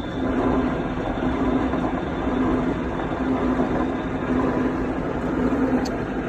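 Milling machine running, its cutter cutting the teeth of a helical gear: a steady mechanical hum that swells and fades over a dense grinding noise.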